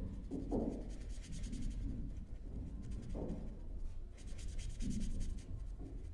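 Hand writing or drawing: a pen scratching across a surface in quick strokes, in two spells, starting about a second in and again about four seconds in, with a few soft taps.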